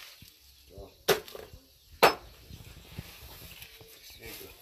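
Machete chopping raw pork on a wooden chopping block: two sharp chops about a second apart.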